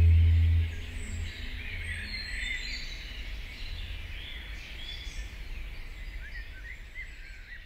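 Several songbirds chirping and calling over a soft outdoor hiss, the calls thinning out towards the end. A low ambient music drone stops suddenly within the first second.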